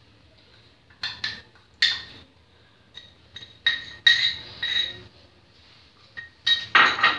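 A spoon clinking and scraping against the inside of a glass jar as ginger-garlic paste is scooped out of it. There are several separate clinks, each with a short glassy ring, and a busier cluster near the end.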